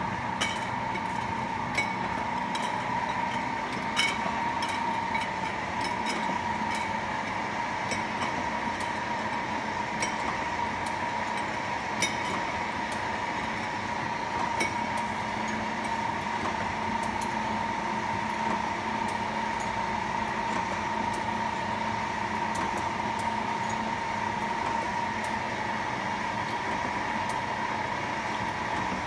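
Fimer RT12 monobloc wine-bottle filler and corker running steadily: an even machine hum with a steady high tone, with occasional sharp clicks and clinks as the glass bottles move through the carousel.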